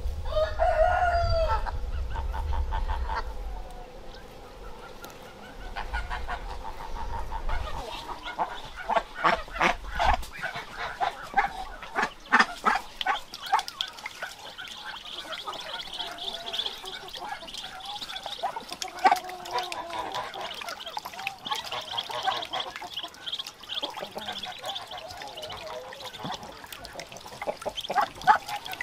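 A rooster crows about a second in, followed by a run of short clucks and poultry calls. Later a steady high peeping of ducklings continues.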